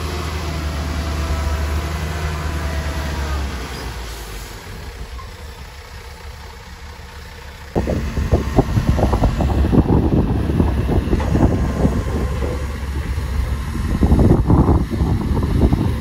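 Diesel engine of heavy construction machinery running steadily, then fading after about four seconds. About eight seconds in, a much louder irregular rumbling and clattering starts suddenly and goes on.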